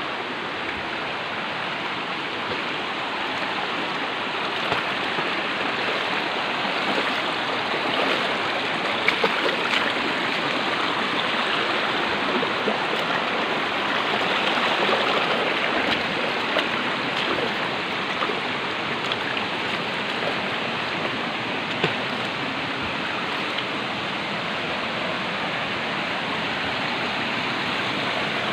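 Forest stream rushing steadily, a little louder in the middle, with a few brief knocks.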